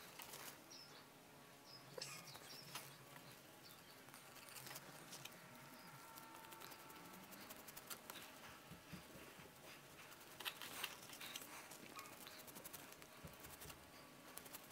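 Faint scraping and small clicks of a skiving knife paring thin strips off the edge of a leather shoe vamp on a glass board, with a few slightly louder scrapes about ten seconds in.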